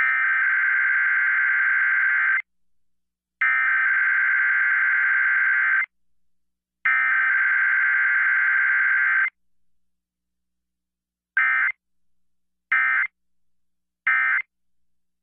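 Emergency Alert System SAME digital data bursts during an EAS test: three long header bursts of about two and a half seconds each, a second apart, then three short end-of-message bursts about a second apart.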